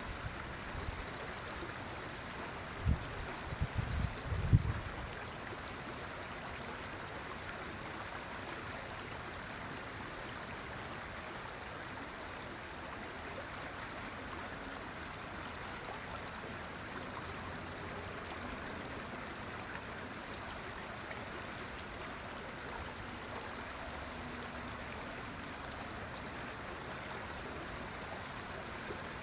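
River water flowing steadily. A few low thumps come around three to five seconds in.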